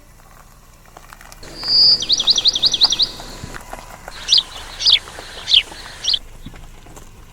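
A bird singing: a held high whistle, then a quick run of about eight falling notes, then four single sharp falling notes a little over half a second apart.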